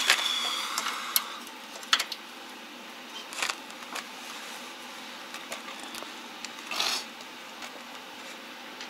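A metal clank with a brief ringing tone, followed by a few sharp clicks and short scraping rustles as tools and cable are handled.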